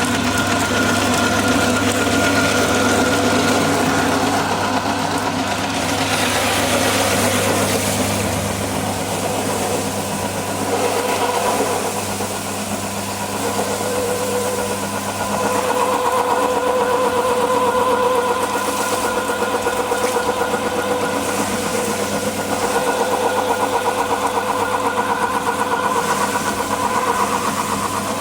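Husk-separating machine running: a steady mechanical drone whose tone shifts a few times, dropping its lowest hum about a third of the way through and taking on a clearer mid-pitched whine about halfway.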